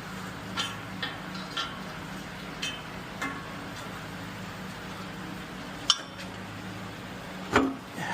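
Scattered metal clinks and taps of hand tools and bolts on a small-block Chevy's exhaust headers being unbolted, with a sharper knock about 6 s in and a louder clatter near the end, over a steady low hum.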